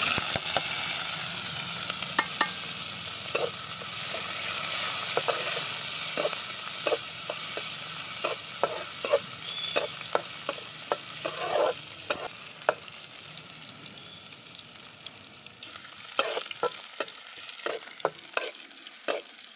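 Sliced onion and garlic sizzling in hot oil in a metal karahi, the sizzle loudest as they go in and easing off over the following seconds. A metal spatula scrapes and clicks against the pan as they are stirred, with a run of clicks near the end.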